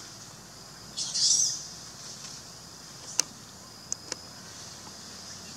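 A brief high-pitched chirp about a second in, then three sharp clicks, over a faint steady high hum.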